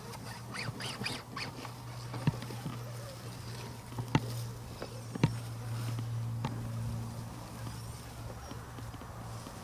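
Axial SCX10 RC crawler's brushless motor (MMP ROC412 2300kv) and geared drivetrain giving a low steady whir at crawling speed, with scattered sharp knocks as its tires and chassis strike the stones; a flurry of small clicks and crackles comes in the first second or so.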